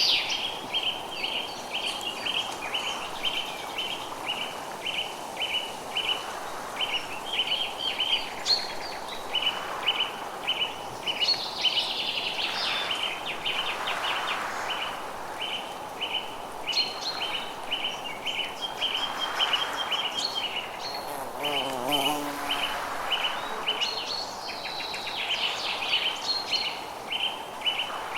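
Forest birdsong: one bird repeats a short high chirp about two or three times a second, while other birds add brief higher calls. A soft rushing noise swells and fades underneath.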